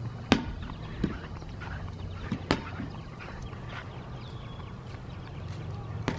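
A few sharp knocks, irregularly spaced, the loudest about a third of a second in, over a steady low hum.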